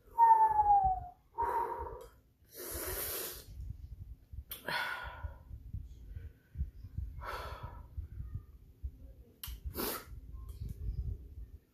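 A woman's breathing as she reacts to the heat of extra-spicy noodles: a loud falling 'ooh' through pursed lips at the start, then a long breath blown out about three seconds in. Shorter breaths or sniffs follow every couple of seconds.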